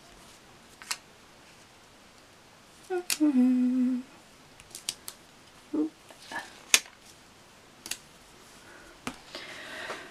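Small clicks and paper rustles from fingers pressing and smoothing a sticker strip onto a planner page. A short hummed note about three seconds in is the loudest sound.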